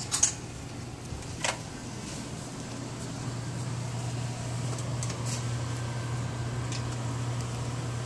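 Steady hum of a heat pump air handler's blower running, growing a little louder about three seconds in. A couple of sharp knocks near the start.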